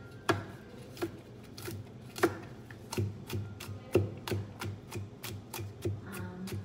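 Large kitchen knife chopping peeled garlic cloves on a plastic cutting board: irregular sharp knocks, a few a second, with three harder strikes standing out.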